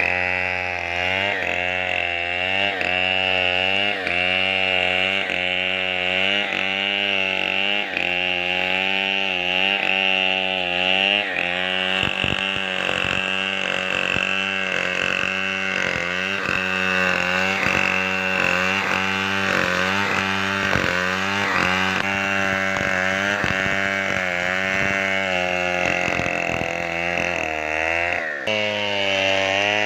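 Chainsaw engine running hard, its pitch dipping and recovering about every second and a half as the chain bites into wood.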